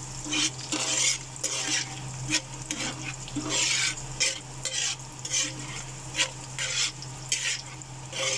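Metal ladle stirring and scraping against a metal wok, about two scrapes a second, while onion, ginger, garlic and chili sizzle in hot oil.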